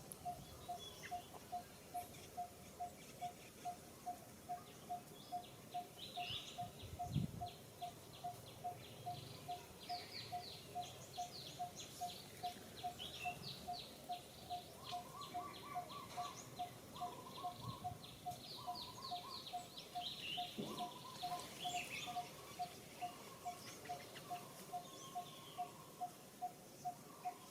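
Birds calling: one steady note repeated about twice a second, with other birds' rapid, high chirping trills in the middle.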